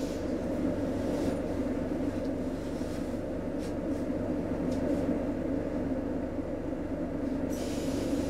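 Steady hum inside the passenger cabin of a Roslagsbanan X10p electric train standing at a platform, with a few faint clicks and a brief hiss starting near the end.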